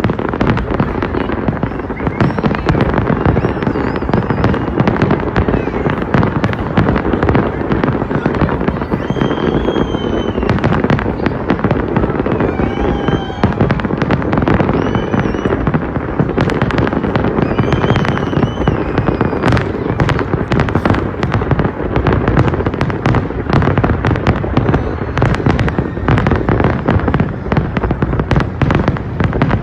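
Large fireworks display: a dense, continuous barrage of bangs and crackling shell bursts, hardly a gap between them.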